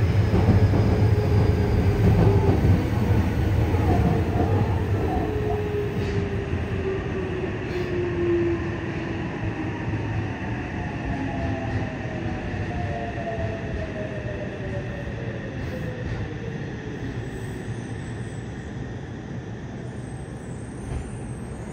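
Yokohama Municipal Subway 3000R-series train heard from inside the car while slowing. The whine of its Mitsubishi IGBT-VVVF inverter and traction motors falls steadily in pitch, and the wheel and track rumble fades, as the train brakes for the next station.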